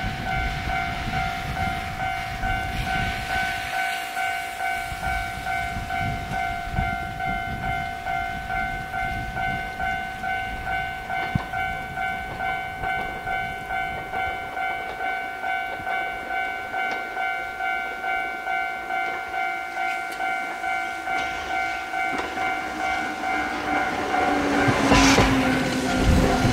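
Railway level-crossing warning bell ringing, a steady two-tone electronic ding repeating about twice a second, then a train coming through loudly near the end.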